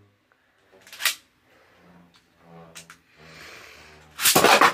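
Plastic Beyblade top and stadium noises: a sharp clack about a second in, faint rattling, and a loud rasping burst near the end.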